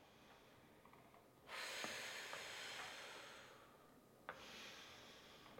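A woman's faint breathing while exercising: a long exhale of about two seconds starting about one and a half seconds in and fading away, then a sharp click and a shorter, weaker breath near the end.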